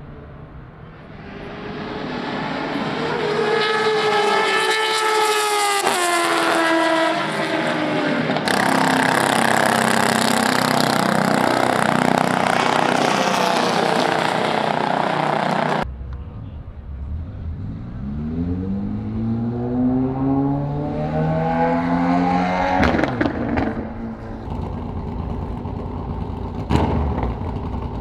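Vintage racing-car engines at high revs. One passes with its pitch falling, then comes a loud steady stretch, then an engine revs up with its pitch climbing. A couple of sharp cracks are heard near the end.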